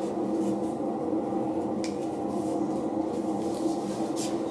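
A steady droning hum runs throughout, with brief rustles of hands unwinding a foam flexi rod from hair about two seconds in and again near the end.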